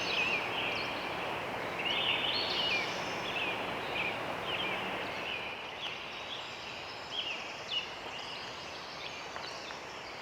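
Birds singing in a repeated series of short, high chirps over a steady background hiss.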